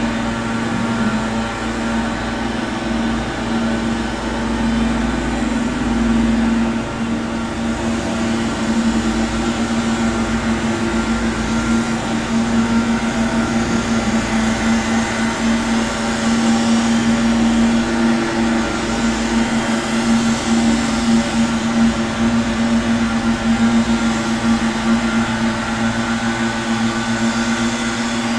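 Gardening machinery running outside, heard from inside a room: a steady motor drone with a constant hum that holds the same pitch throughout.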